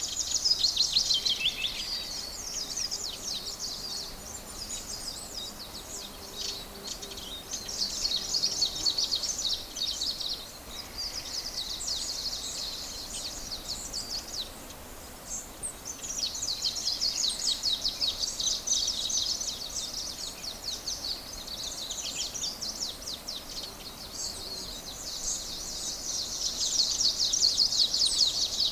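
Songbirds singing in a morning chorus: rapid high-pitched chirps and trills in bouts of several seconds with short lulls between them.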